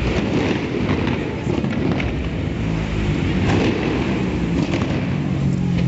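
Busy street ambience: car traffic running along the road beside a crowded pavement, with a low steady engine hum coming in about halfway through.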